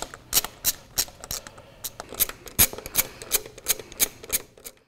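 Ratchet wrench with a 13 mm socket clicking as the drive-wheel bolts of a power wheelchair are backed out: a string of sharp metallic clicks, about three a second.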